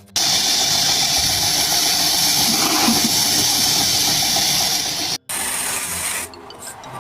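A power tool running with a loud, steady hiss. It starts abruptly, cuts out for an instant just after five seconds, and drops much quieter about a second later.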